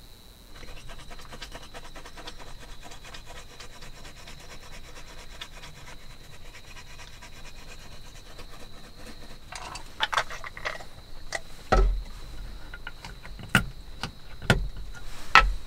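Toothbrush scrubbing teeth in quick, steady back-and-forth strokes, followed in the last few seconds by a handful of sharp clicks and knocks as small items are handled and set down on a wooden table.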